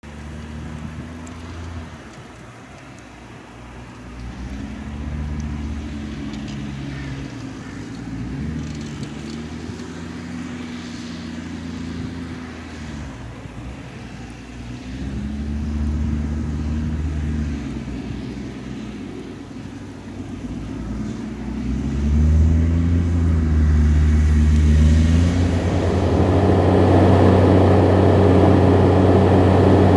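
New Holland T7060's six-cylinder turbo-diesel engine working under load while ploughing, its note dipping and rising several times. It grows much louder over the last several seconds as the tractor comes close.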